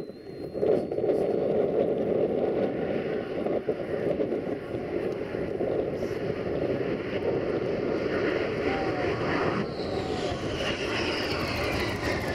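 The Shockwave jet truck's three jet engines running at full power through its high-speed run, a loud steady rushing roar. Near the end a falling whine comes in as the engines wind down with the drag chute out.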